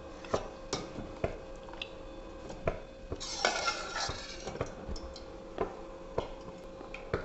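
Steel ladle and spoon clinking and scraping against each other and the rim of an enamel pot as syrup-soaked fried boondi are scooped out of the sugar syrup. Scattered sharp clinks, with a longer scraping stretch a little after three seconds in.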